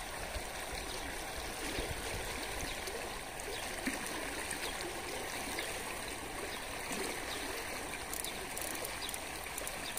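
Sea water washing steadily, a continuous rushing sound.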